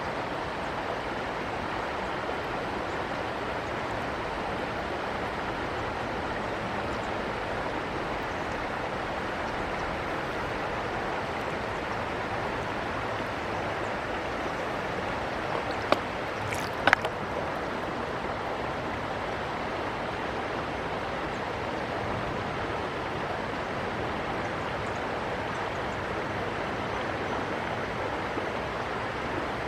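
Steady rush of flowing river water, with two brief sharp clicks just past the middle.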